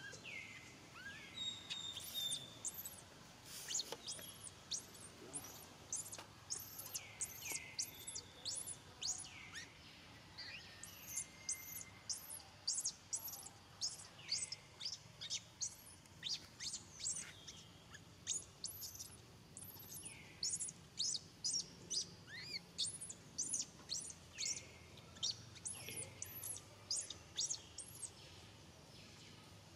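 Baby macaque screaming for its mother in a long run of short, high-pitched, falling squeals, a few a second: distress calls of a hungry infant.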